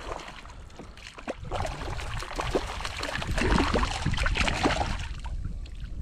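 Hooked fish splashing and thrashing at the water's surface as it is fought in to the side of a kayak, the splashing loudest a little past the middle and easing near the end.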